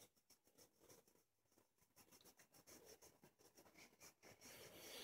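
Near silence with faint scratching and rustling, a little louder near the end.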